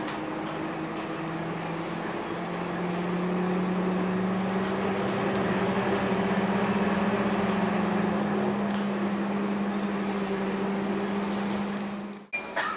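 City bus's diesel engine and drivetrain humming steadily with a low drone, heard from inside the passenger cabin as the bus drives along, growing louder for a few seconds as it pulls harder. The sound cuts out suddenly for a moment near the end.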